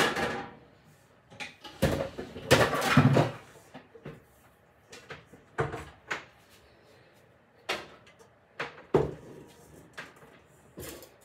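A string of separate knocks and clunks: a kitchen cupboard opening and closing and a heavy stand mixer being lifted out and set down on the worktop. The loudest clunks come at the very start and about two and a half seconds in.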